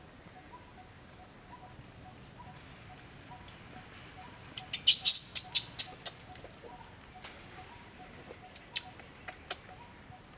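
A quick run of about eight sharp, high clicks or chirps about four and a half seconds in, the loudest sound, followed by a few scattered single clicks. Behind them a faint, evenly repeating two-note chirping keeps on throughout.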